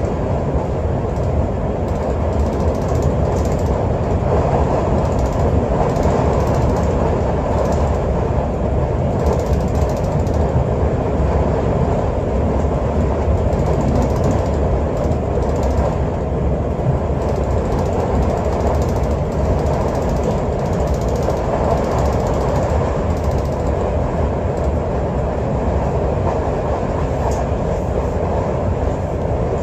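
Cabin running noise aboard a Class 365 Networker Express electric multiple unit: a steady rumble of wheels on rail with a few faint clicks.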